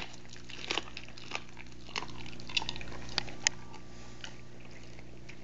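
A dog biting and gnawing at a raw turkey neck: scattered sharp clicks and crunches of teeth on the meat, spaced irregularly and dying away after about four seconds, over a steady low hum.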